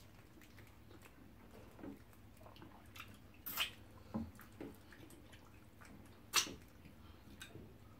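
Wet eating sounds of fufu and pepper soup eaten by hand: soft lip smacks, squishes and mouth clicks, with two sharper smacks about three and a half and six seconds in.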